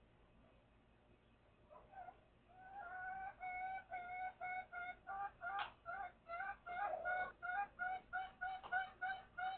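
A chicken calling in a steady run of short, repeated, pitched clucks, about two to three a second, starting about two seconds in and growing louder.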